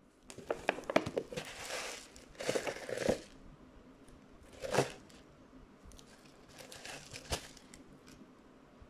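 Maggi Hot Mealz cup noodle container handled and turned over in the hands: its packaging crinkling and rustling in a few bursts, with sharp taps and clicks as the cup is gripped and shifted.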